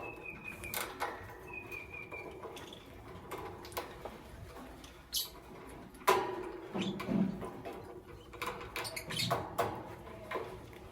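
Lovebirds chirping in short, sharp calls among clicks and scratchy movement sounds, with one longer, slightly falling call near the start and a louder flurry about six seconds in.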